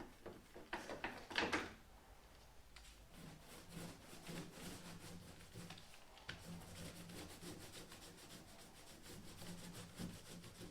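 Rubbing and scraping against wood, loudest in a short cluster of strokes about a second in, followed by a low steady hum with light scratching over it.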